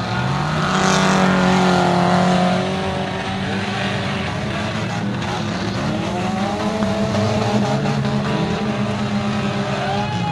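Engines of several race cars running around a dirt oval, one rising in pitch as it accelerates and passing loudest about a second in. Engine pitch rises and falls as the cars go round.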